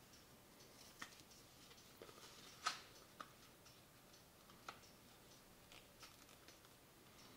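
A sheet of white paper folded and creased by hand on a wooden table: faint rustling and irregular ticks as fingers press the folds flat, with one sharper crackle about two and a half seconds in.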